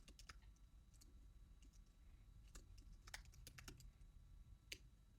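Faint computer keyboard keystrokes: a handful of separate taps at uneven intervals.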